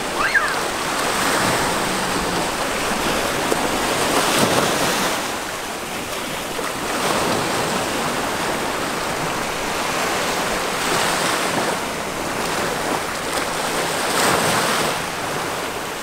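Small sea waves breaking and washing up a sandy beach, the surf swelling every three to four seconds.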